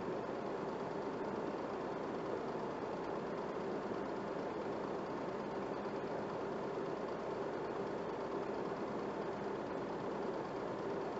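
Movie projector running: a steady mechanical whir and hum with no change.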